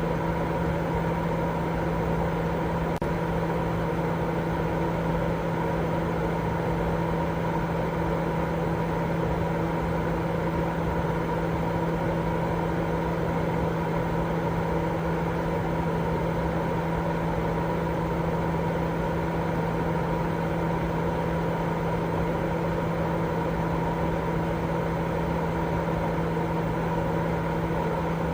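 Continuous white noise for baby sleep: an even, unchanging hiss weighted toward the low end, with a steady low hum running under it.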